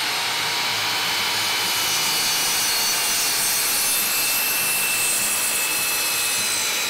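Sliding compound miter saw running at full speed and cutting through a pressure-treated 4x4 post, a steady high whine over the noise of the blade in the wood.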